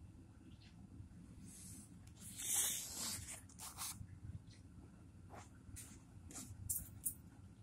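Soft rustling and clicking handling noise over a low, steady rumble, with one longer hissy rustle about two and a half seconds in and scattered short scrapes after it.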